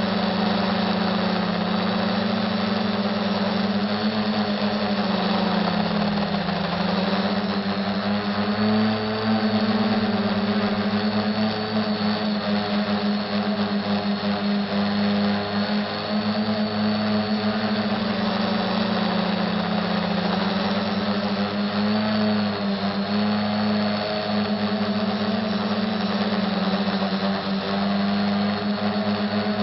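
SK450 dead-cat quadcopter's electric motors and propellers running in flight: a steady buzzing hum over a hiss, its pitch dipping and rising again twice as the throttle changes.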